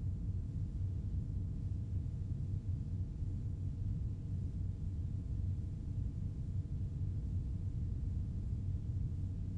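A steady low rumble with a few faint held tones over it, unchanging throughout, with no distinct events.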